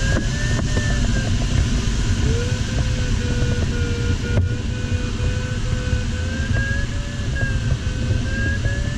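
Steady airflow rumble in a glider cockpit, with a continuous electronic variometer tone whose pitch wavers up and down slightly.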